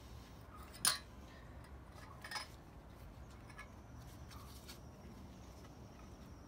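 A few light metallic clinks as steel balance shaft bearings are handled against the bores of a 4G63T engine block, the loudest about a second in and another about two and a half seconds in.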